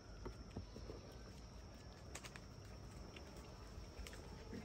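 Faint scuffling and a few soft, scattered taps of German Shepherd puppies wrestling and scrambling on dry dirt, over a low outdoor background.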